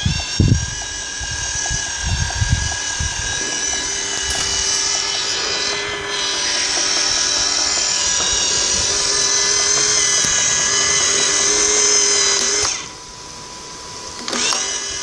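Electric motors of a small wheeled robot running with a steady whine of several pitches, with a few low thumps in the first few seconds. The whine cuts out about 13 seconds in and comes back about a second and a half later.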